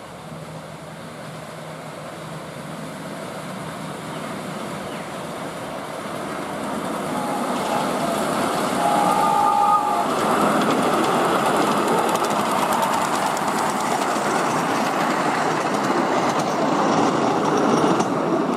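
7¼ inch gauge live-steam Queensland Rail BB18¼ class locomotive and its riding cars running along the track, growing louder as the train approaches and passes close by. A brief high tone sounds about nine seconds in.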